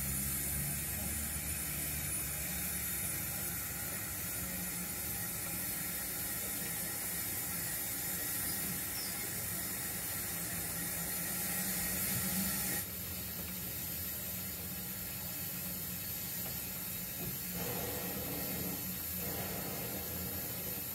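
7mm-scale (O gauge) model goods wagons and a model steam locomotive running along the track, a steady mechanical rattle and whir with a hiss. The hiss drops away about two-thirds of the way through.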